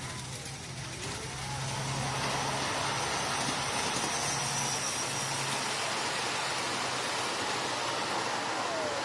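Miniature ride-on railway train passing close by on a steel truss bridge: the steady running noise of its wheels on the rails, which grows louder about a second and a half in.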